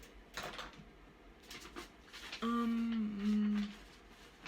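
Light rustles and taps of paper handling, then a person hums about halfway through: two flat, held notes lasting about a second and a half, the second a little lower.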